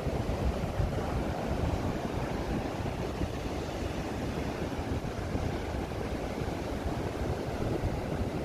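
Heavy surf breaking on a sandy beach, a continuous wash of waves, with wind buffeting the microphone.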